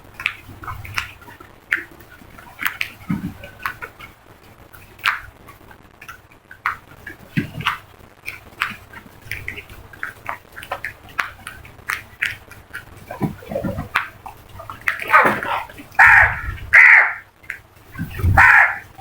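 A flock of crows cawing, many short calls overlapping one another, with a run of louder, longer caws near the end.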